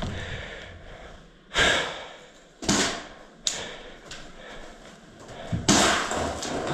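Sharp bangs echoing in a bare room: three spaced about a second apart, then the loudest near the end with a long echo, from an airsoft grenade going off.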